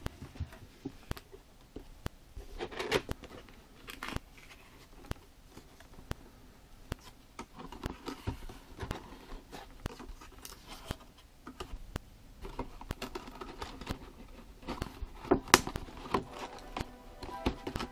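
Cardboard toy packaging being handled and opened by hand: irregular rustling and scraping of the card with scattered sharp clicks and knocks, the loudest knock about fifteen seconds in.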